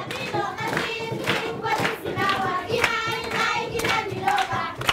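A group of schoolchildren singing together and clapping their hands.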